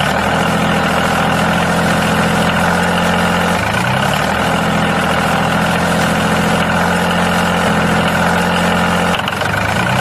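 Tractor engine running steadily at an even, idle-like pitch. The pitch shifts briefly about four seconds in and again near the end.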